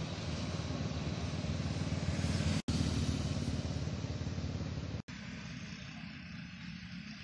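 Highway traffic passing: heavy engine rumble and tyre noise, louder after about two and a half seconds as a motorcycle approaches. The sound breaks off abruptly twice; after the second break only quieter, distant traffic remains.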